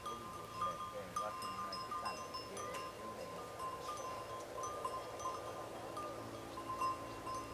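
Small metal bells worn by grazing sheep and goats clinking again and again at irregular moments, each strike ringing briefly at the same pitch.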